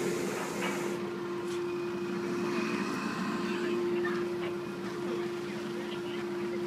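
A motor runs steadily at one constant pitch, with a few faint metallic clicks.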